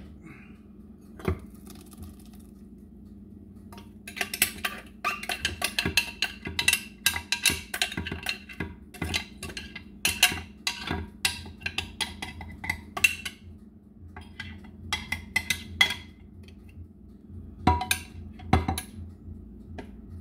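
A metal spoon scraping and tapping against a plastic blender jar as ground fresh corn is emptied into a glass mixing bowl: a long run of quick clicks and clatters, then two louder knocks near the end.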